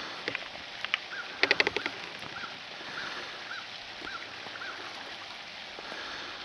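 A fishing reel clicking in a quick run for about half a second while a hooked carp is played. Through the first half a bird repeats a short chirp about twice a second, seven times, over faint outdoor background.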